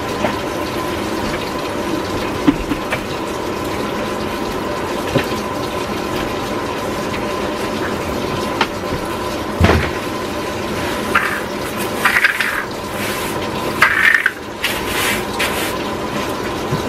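Washing machine filling with water: a steady rush of water with a faint steady tone. A single knock about ten seconds in and a few short rustles near the end.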